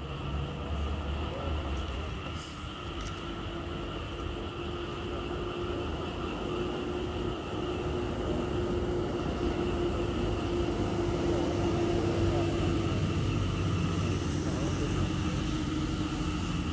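Steady low rumble of a train's diesel locomotive running in the distance down the line, growing a little louder partway through, with a held engine tone over it for much of the time.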